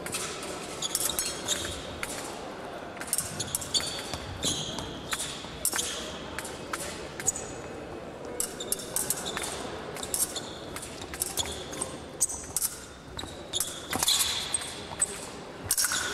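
Épée blades clashing and scraping in quick exchanges, several contacts ringing briefly, mixed with footwork: stamps, thuds and shoe squeaks on the piste. The hall adds an echo.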